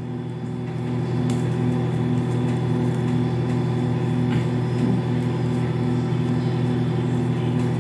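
Steady mechanical hum, like an electric motor running, with a low tone that pulses at an even rate.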